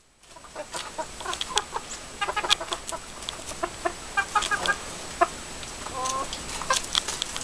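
Flock of hens clucking softly in short calls while feeding, with one longer, steadier call about six seconds in. Many quick sharp taps run through it, the sound of beaks pecking at lettuce and the ground.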